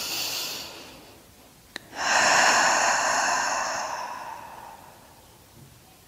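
A woman breathing deeply close to a clip-on microphone. A breath tails off in the first second, a small click follows, then a long, loud breath starts about two seconds in and fades over a couple of seconds.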